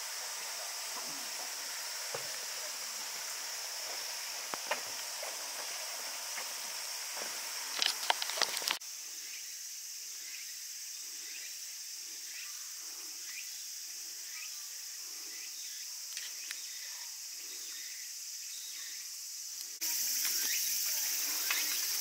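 Steady, shrill chorus of summer insects. It drops abruptly about nine seconds in and comes back louder near the end, with a few sharp knocks just before the drop.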